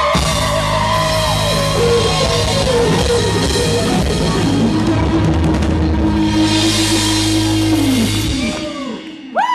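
Live rock band at full volume, with electric guitar and drum kit, recorded right in front of the stage with clipping distortion. The band cuts off about eight seconds in, and the crowd starts cheering and whooping near the end.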